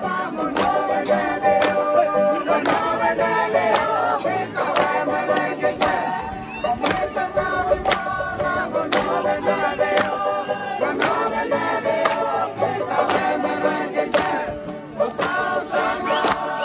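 Music: a group of voices singing together in harmony, over a steady beat of sharp strikes about once a second.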